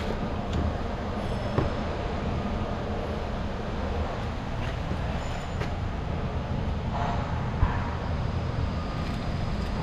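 A steady low mechanical rumble, with two brief clicks, about a second and a half in and near the end.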